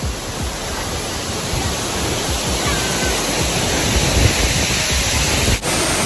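Loud, steady rush of falling water from several waterfalls pouring into a pool, with irregular low thumps on the microphone. It dips briefly near the end.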